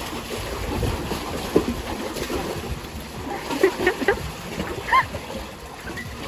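Water splashing and sloshing over a steady low rumble. A few faint short voices or calls come in about four to five seconds in.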